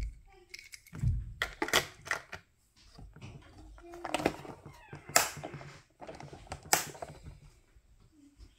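Sharp clicks and knocks of hard plastic as a die-cast toy car is set into a plastic carry-case truck and the clear lid is shut and latched, about five clicks spread out with handling rustle between.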